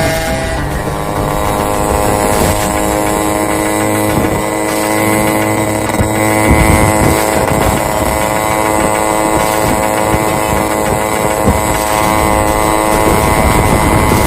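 Yamaha RX two-stroke motorcycle engine running with a steady pitched tone.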